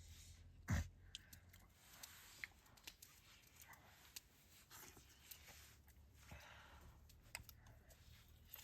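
Near silence with faint rustling and scattered small clicks, and one soft thump about a second in.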